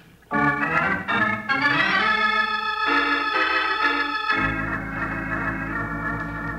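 Organ music bridge between scenes of a radio drama: a short run of changing chords that settles, about four seconds in, onto a held low chord.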